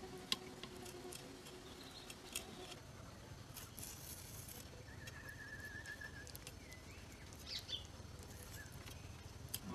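Faint, scattered small clicks and ticks of a knife deveining raw shrimp held over a stainless steel colander, against a quiet outdoor background, with a short high wavering tone about halfway through.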